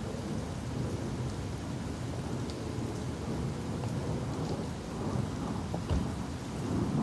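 Steady rain falling, with a low rumble underneath and a single thump about six seconds in.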